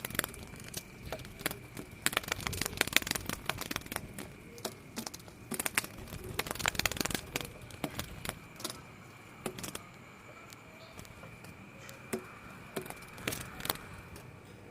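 Kittens playing indoors: scattered clicks, taps and light rattles, coming in clusters, over a faint steady high tone.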